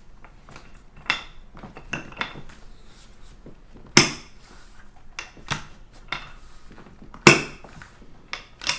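A series of sharp knocks and clicks of hard objects around a chiropractic treatment table, with two loud clacks about four and seven seconds in.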